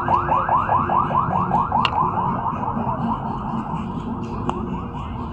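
An electronic warbling alarm or siren, repeating rapid sweeps in pitch about six or seven times a second and fading gradually, with two sharp clicks along the way.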